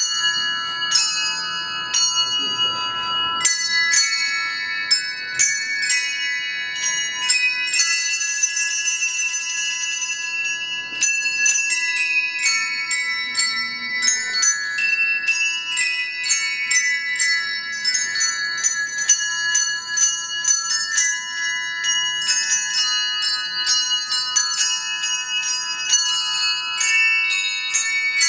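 A handbell choir playing a melody with chords, each struck note ringing on and overlapping the next. About eight seconds in, a shimmering passage of rapidly repeated high notes lasts a couple of seconds.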